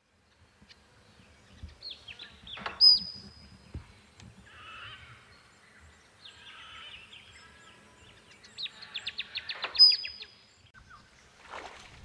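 Male musk duck's courtship display: twice, a sharp loud plonk followed by a short high whistle, the second plonk preceded by a quick run of about ten ticks. Softer splashing of water in between and again near the end.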